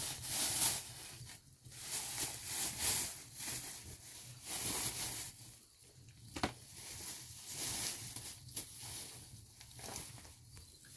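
Thin plastic bag crinkling and rustling in irregular bursts as flatbread is pulled out of it, with one sharp click about six and a half seconds in.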